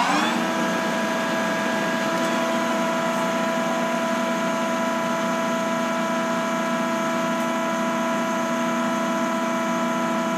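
Cazeneuve HB725 engine lathe running steadily under power, its spindle drive and gearbox giving an even whine of several steady tones. The pitch settles right at the start as the spindle comes up to speed after a shift, then holds constant.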